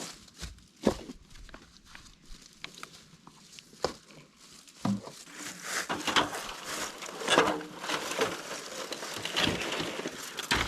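Irregular rustling and crinkling, as of dry material being handled, with a few sharp knocks. The rustling grows busier in the second half.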